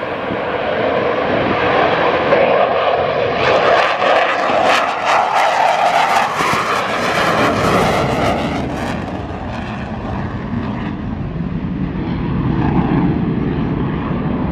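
A CF-18 Hornet's twin General Electric F404 afterburning turbofans passing low: loud jet noise that breaks into a sharp crackle from about three and a half seconds in, the sound of the afterburners lit. After about nine seconds the crackle stops and the noise sinks to a lower rumble as the jet flies away.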